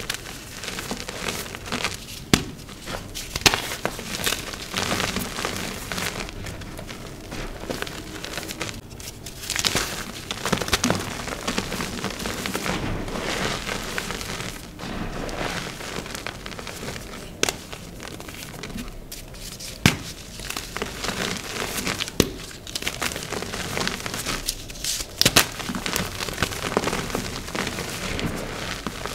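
Dyed reformed gym chalk being crushed and crumbled: dense crunching and crackling, with sharp snaps now and then.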